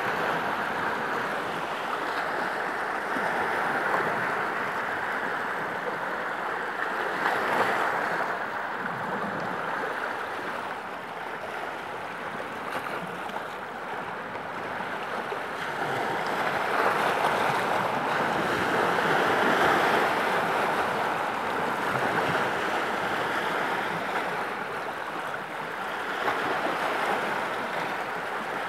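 Lake waves washing over and breaking on flat rock ledges at the shoreline, a continuous wash of surf that swells louder every several seconds as bigger waves come in.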